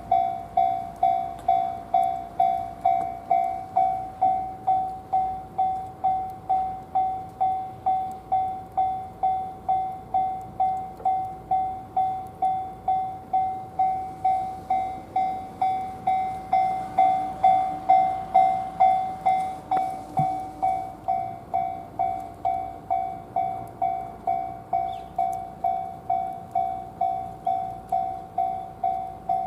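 Japanese railway level-crossing alarm ringing on and on, a repeated electronic clang about twice a second. It keeps sounding while all trains are cancelled, which the uploader takes for a possible crossing fault.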